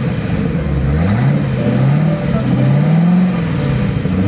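Freshly rebuilt Volvo Penta 5.7 GXi gasoline V8 marine engine running, its revs rising and falling about three times. This is its first run-in after new pistons, bearings and valves, kept running to break it in and settle the idle.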